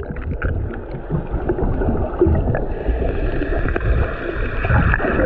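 Seawater sloshing and gurgling around a camera held at the sea surface, with rumbling wind on the microphone. A steady higher hum joins about three seconds in.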